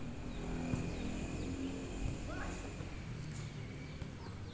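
Ambience of an outdoor futsal game: faint players' voices in the first couple of seconds and a few faint knocks, over rustling from the moving handheld camera.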